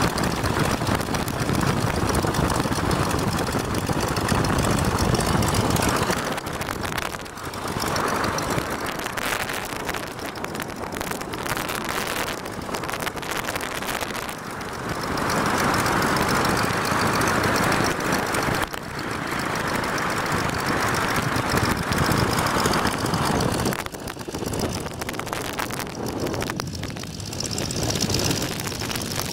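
Stearman biplane radial engine and propeller running at low taxi power, its level rising and falling every few seconds as the power changes.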